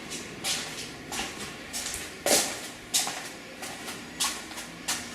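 Footsteps on a hard floor in an empty, unfurnished house, about one step every half second or so, with a couple of heavier steps near the middle.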